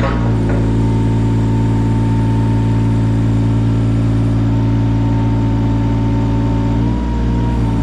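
Yanmar 017 mini excavator's diesel engine running at a steady speed, with a thin high steady tone over it; the note dips and shifts briefly about seven seconds in.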